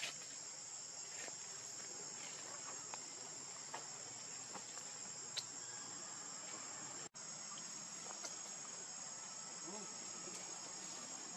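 Steady high-pitched insect chorus of forest crickets or cicadas, with a few faint ticks from the ground. The sound briefly cuts out about seven seconds in.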